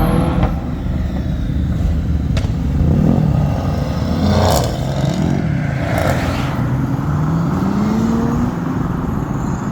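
Car engine and exhaust rumble, with one engine revving up, its pitch rising, about seven to eight seconds in.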